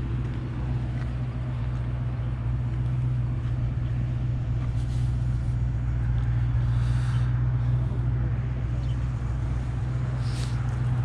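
Steady low rumble of road traffic and vehicles, unbroken throughout, with a few faint brief sounds on top.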